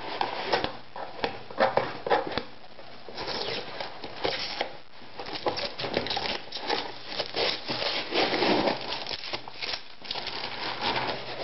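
Cardboard shipping box being opened by hand, packing tape peeled and the box handled, giving irregular scraping, crackling and tapping noises.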